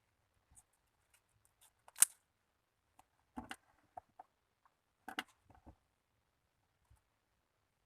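Slime being handled, giving short wet clicks and pops: one sharp loud pop about two seconds in, then small clusters of pops and crackles.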